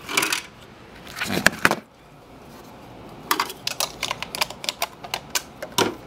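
Handling noises: a few sharp knocks in the first two seconds, then a run of light, irregular clicks.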